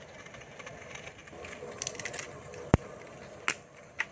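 Wood cooking fire crackling under a pot: irregular sharp clicks and snaps, a quick cluster about two seconds in, then a few single sharp cracks.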